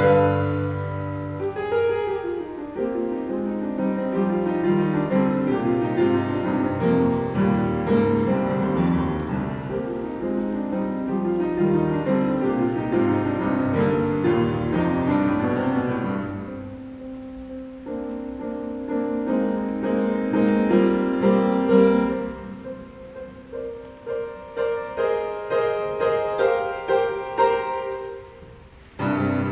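Upright piano played solo in a classical style: a full, flowing passage of many notes that thins in the second half to softer, separately struck chords, with a sudden loud chord just before the end.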